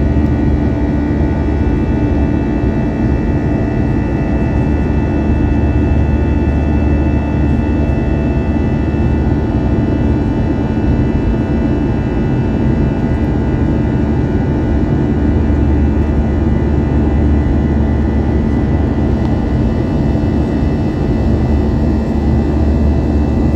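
Steady jet engine and airflow drone heard inside the cabin of an Airbus A321 in flight: an even low rumble with several constant hum tones on top.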